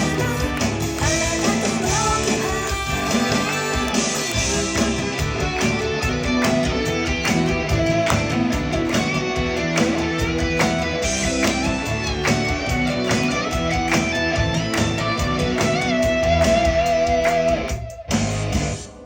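Live pop-rock idol song with guitar and singing, ending on a long held, wavering note and stopping abruptly about a second before the end.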